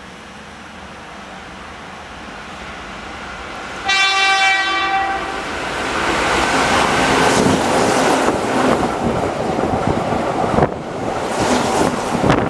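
Keihan 6000 series electric train approaching and passing at speed. Its horn sounds once, about a second and a half long, some four seconds in. The running and wheel noise then builds as the cars go by, with sharp beats of wheels over rail joints near the end.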